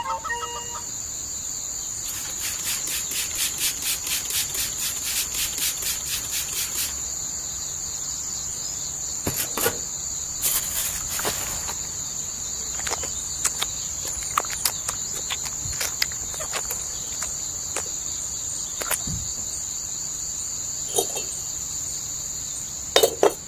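Insects chirring steadily in one high, continuous tone, pulsing rapidly for a few seconds near the start. Scattered light clicks and taps come over it.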